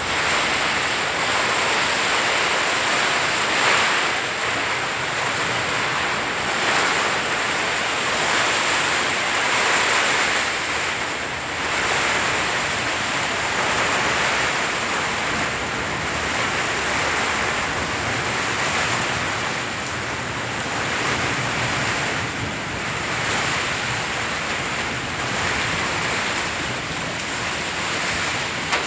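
Rain with strong wind: a steady rushing noise that swells and eases in gusts every few seconds.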